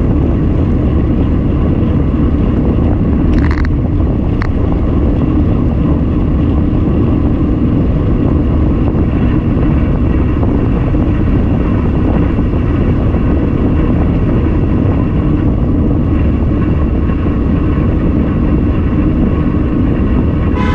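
Steady, loud rumble of wind and road noise from travelling along a road, with a brief hiss about three and a half seconds in.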